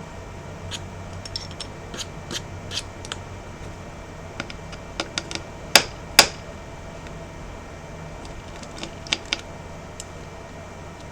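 Light, irregular clicks and taps of small metal repair tools and tiny screws on an opened iPhone 11, as screws are taken out and set down. The two loudest clicks come close together about six seconds in.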